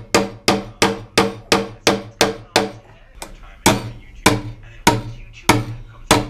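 Claw hammer striking nails into a wooden stud while a blue plastic electrical box is fastened on: a quick run of sharp blows about three a second, a short pause a little before halfway, then a slower run of blows about one every 0.6 s.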